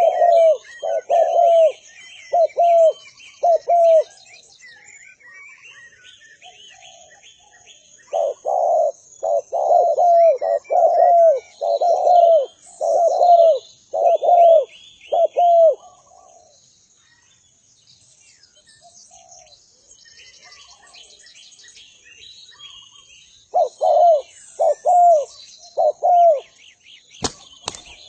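Derkuku dove cooing in quick runs of short, falling notes, the 'tuku-tuku' call, in three bouts with pauses between. Small birds chirp faintly and higher throughout, and a sharp click sounds shortly before the end.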